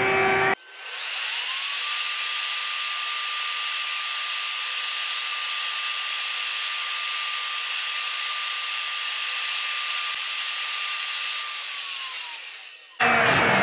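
Router spindle motor of a woodworking milling machine spinning up to a steady high whine, with a straight bit cutting a slot into a wooden cylinder. The motor winds down near the end.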